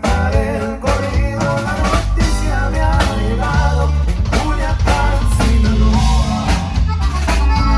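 A band playing live at a sound check: a drum kit keeps a steady beat, with bass drum and rimshots, under pitched melodic instruments.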